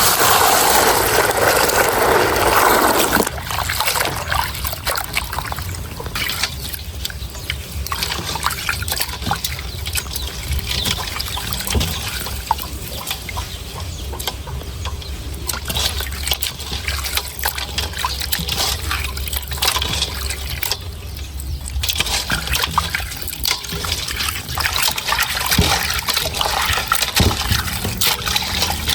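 Water trickling and sloshing, with many small clicks and knocks throughout. A louder gush of water fills the first three seconds.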